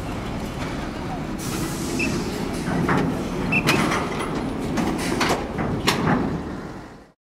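Diesel container truck pulling a loaded container trailer drives down a ship's steel loading ramp, engine running, with several sharp knocks and clanks as the trailer crosses the ramp. The sound cuts off suddenly near the end.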